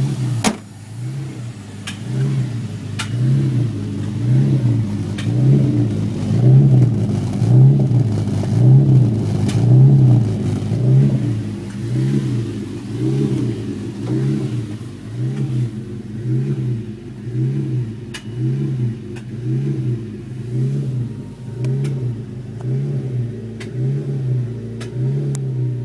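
Honda Civic Type R EP3's four-cylinder engine hunting at idle: the revs rise and fall in a steady cycle about once a second. It is a symptom of a fault that has set a P1259 VTEC system malfunction code, which the dealer has not been able to trace.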